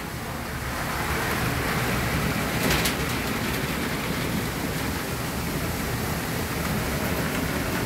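Very heavy rain pouring down, a steady hiss of rain and running water.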